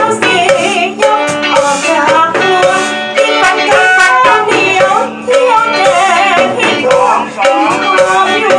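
A woman sings into a microphone over a live band playing, with drums keeping a steady beat.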